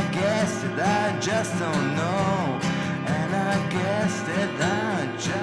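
Band music with no vocals: a wavering, gliding melody line over a steady low accompaniment.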